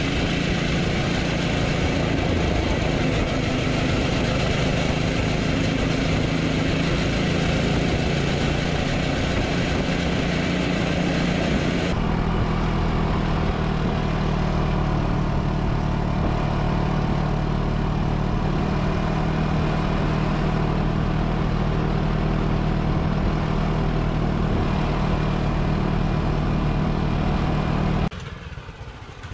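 The 168cc 6.5 hp single-cylinder four-stroke engine of a homemade cargo tractor runs steadily as the vehicle drives along. Near the end the sound drops off suddenly and becomes much fainter.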